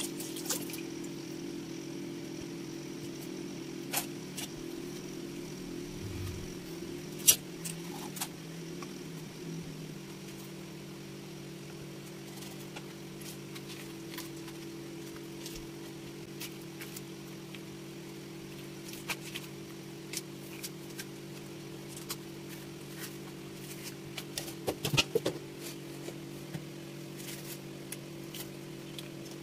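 A steady low hum runs throughout, with scattered sharp knocks and clicks from a triggerfish being handled and skinned on a wooden chopping block. The loudest knock comes about seven seconds in, and there is a quick cluster of them about twenty-five seconds in.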